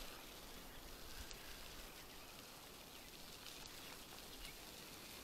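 Faint, even noise of a mountain bike rolling along a packed dirt road, with a low rumble and a few light ticks.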